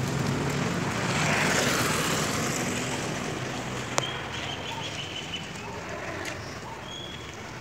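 Outdoor road ambience with a motor vehicle passing, its noise swelling and fading between about one and two and a half seconds in. There is a single sharp click about four seconds in.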